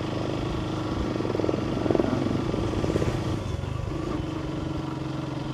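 Motorcycle engine running steadily while riding, heard from the rider's seat; it grows a little louder and rougher for a couple of seconds in the middle, then settles back.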